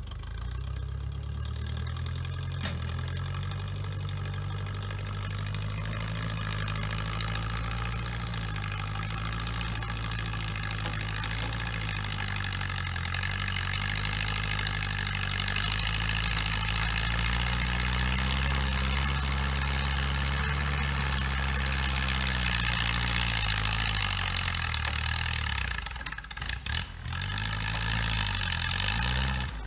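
Vintage Garrett Tree Farmer log skidder's engine running as the machine drives and works. Its pitch climbs and falls with the throttle, and it drops briefly near the end before picking up again.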